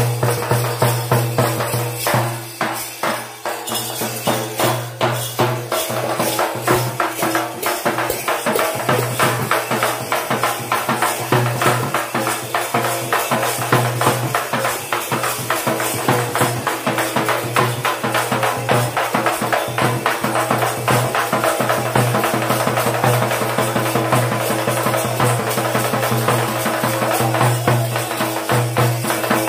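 Teenmaar drumming: round frame drums (dappu) beaten in a fast, driving rhythm of dense, evenly spaced strokes that keeps going without a break.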